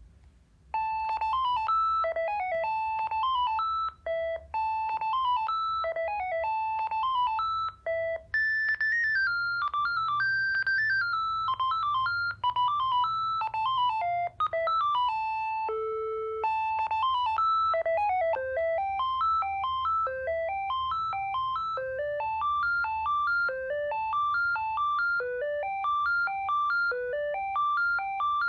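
Panasonic phone handset playing its ringtones: a quick melody of short electronic tones starts about a second in. About halfway through, after one held low note, the tune changes to fast rising runs of notes repeated over and over.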